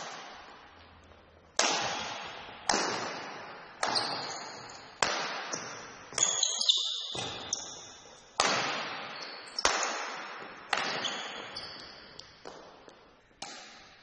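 Badminton rally: a shuttlecock is struck back and forth by rackets. Each hit is a sharp smack about once a second with a long echoing tail, and a few high squeaks come around the middle.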